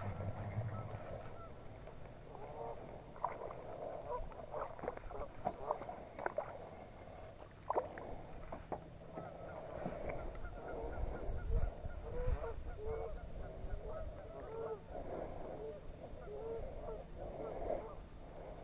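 Geese honking in a long run of short repeated calls, with a few sharp clicks among them.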